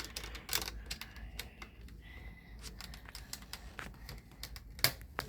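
Plastic Snap Circuits pieces being handled and snapped onto the base grid: scattered irregular clicks and small rattles, with one louder snap near the end.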